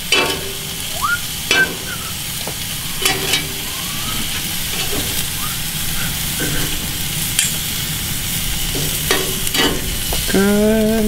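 Chicken pieces sizzling on a hot grill plate, with a few sharp clicks and scrapes of metal tongs against the plate and a stainless steel bowl as the pieces are lifted into teriyaki sauce. The pieces are partly stuck to the ungreased plate.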